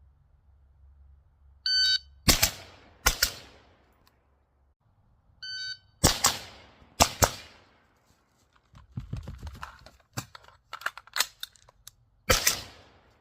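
A shot-timer beep, then an AR-15-style rifle firing a quick pair of shots about a second apart; this happens twice. Lighter clicks and knocks follow, and a third pair of shots begins near the end.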